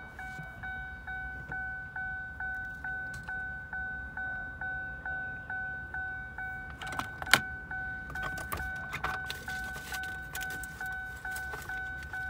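2008 Chevrolet Equinox's warning chime dinging steadily, about two dings a second, each ding dying away, with the key left in the ignition. From about seven seconds in, the keys and their ball chain jangle and click against the dash.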